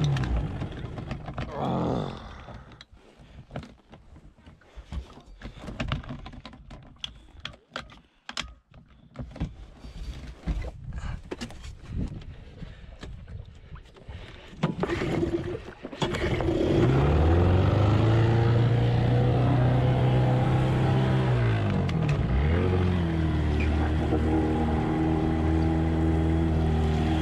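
20 hp Evinrude outboard motor running, then cutting out about two seconds in, followed by a stretch of scattered knocks and handling noise. About fifteen seconds in the motor starts again and runs, its pitch climbing, dipping once briefly and then holding steady as the boat gets under way. The owner says this engine has only 30 psi of compression.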